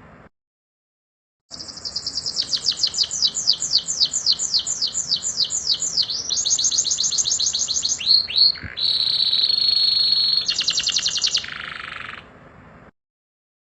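Domestic canary singing one long phrase of rapid high trills and rolls: a run of quick falling notes, a buzzy trill, two downward swoops, then a held high roll, with a silent pause before and after.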